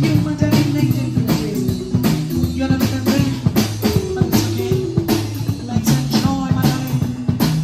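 Live marimba band playing: wooden marimbas sound a repeating run of short, quickly fading notes over a drum kit's steady beat.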